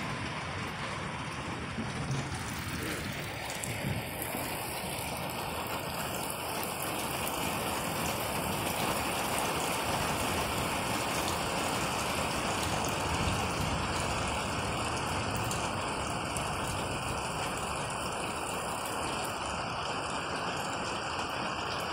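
Steady rain falling, getting a little heavier a few seconds in.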